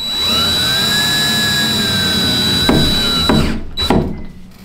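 Power drill driving a screw through a thin flat metal strip into wood, spinning up and running at a steady speed for about three and a half seconds, with a knock shortly before it stops, then a couple of short clicks.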